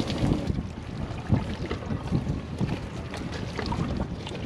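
Water pouring and dripping out of a just-hauled plastic stone crab trap, with short knocks and clicks as the trap is handled, a sharper knock about a second in, over wind on the microphone.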